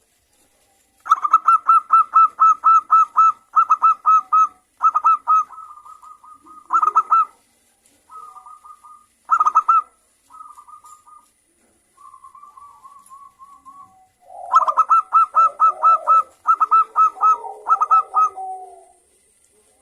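Zebra dove (perkutut) singing: phrases of quick, staccato repeated coos, beginning about a second in and broken by short pauses. Near the end a fuller phrase comes with lower, rougher notes underneath.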